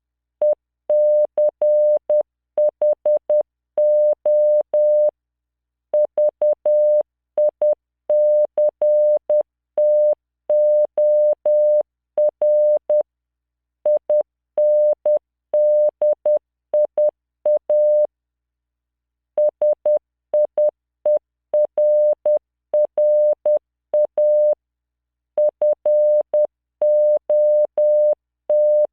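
Morse code at 10 words per minute, sent as a steady 600 Hz computer-generated tone keyed into short dots and longer dashes. The characters come in groups, with pauses of about a second between some of them.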